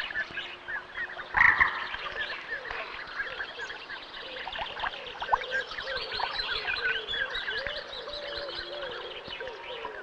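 A chorus of lakeside wildlife calls: many short, high chirps and peeps over lower rising-and-falling calls, with one louder call about a second and a half in.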